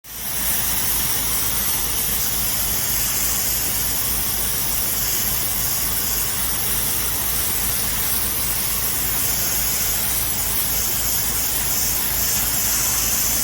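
Pressure washer running steadily: the motor's low hum under the loud, unbroken hiss of the high-pressure water spray as it blasts acrylic paint off a wooden deck.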